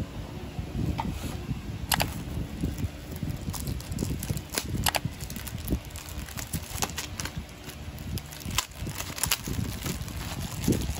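Clear plastic wrap crinkling and crackling as it is pulled off a tablet case, in irregular sharp snaps, over low rubbing and bumping of hands handling the case.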